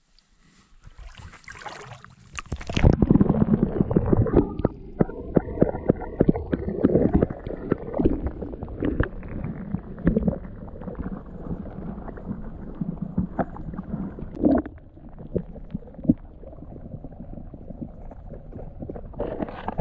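Muffled underwater gurgling and rumbling of shallow dam water heard through a submerged camera, full of small clicks and knocks, starting with a short hiss of water as the camera goes under between one and three seconds in.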